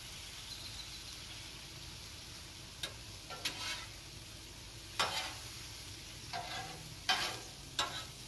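Thin-sliced marinated beef sizzling steadily on a hot flat-top griddle. Several sharp scrapes and clacks, about six, come from the meat being stirred and turned on the griddle surface, starting about three seconds in.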